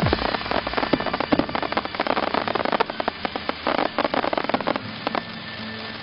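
Aerial firework bursts with a dense, rapid crackle of many small pops. The crackle thins out and fades about five seconds in.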